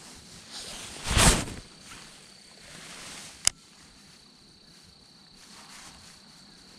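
A cast with a baitcasting rod and reel: a loud swish about a second in, then a single sharp click about two seconds later. Faint outdoor background follows.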